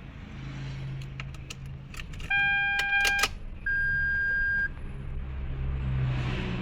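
Car keys jangling and clicking, then two electronic beeps of about a second each, the second higher-pitched than the first.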